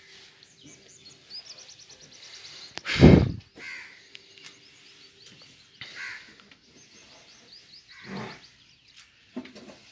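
Small birds chirping and trilling repeatedly, with one loud, brief burst of noise about three seconds in and a couple of softer low sounds near the end.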